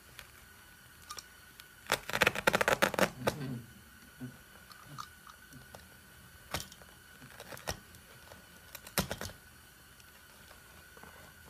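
Upholstery staples being pried out of a wooden chair frame with a metal tool, with fabric and stuffing pulled loose: a quick run of crackling clicks and snaps about two seconds in, then a few single clicks.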